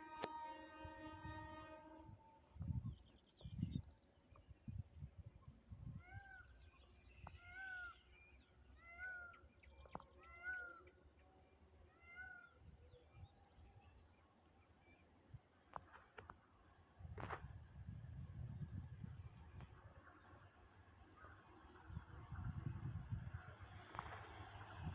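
A distant train horn sounds one steady blast in the first two seconds. It is followed by a series of five short, rising-then-falling calls from Indian peafowl (peacocks) a little over a second apart. Under it all runs a steady high insect drone, and a low rumble builds through the second half.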